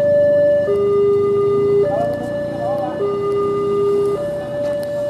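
Railway level-crossing warning alarm sounding: an electronic two-tone signal that switches between a higher and a lower tone about every second, warning that a train is approaching with the barrier down.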